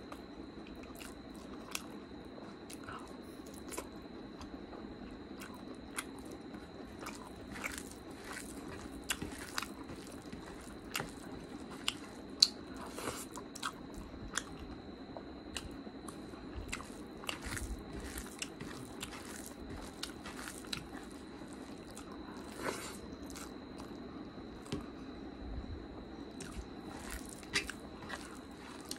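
Close-up mukbang eating sounds: wet chewing and mouth smacks of rice and curry, with the squish and click of fingers mixing the food on the plate. Many short, irregular clicks, the sharpest about twelve seconds in.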